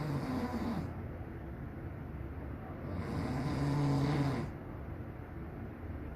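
A man snoring: the end of one snore in the first second, then a longer, louder snore with a low droning pitch starting about three seconds in and lasting about a second and a half.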